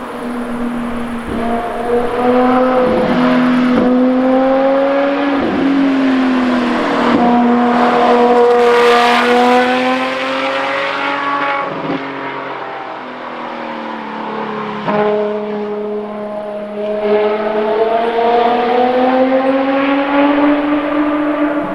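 Ferrari FXX K Evo's V12 engine at high revs on track. Its pitch climbs and falls as the car accelerates and brakes, with brief breaks at each gear shift.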